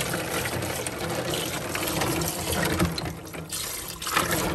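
Kitchen tap running into a sink of water where mussels are soaking to be cleaned. The splashing eases about three seconds in and picks up again near the end.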